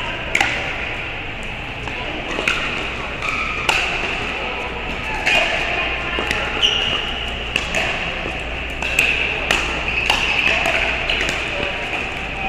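Pickleball paddles striking the plastic ball, sharp pops every second or so, some nearer and some fainter from other courts, echoing in a large indoor hall, with a few short high squeaks among them.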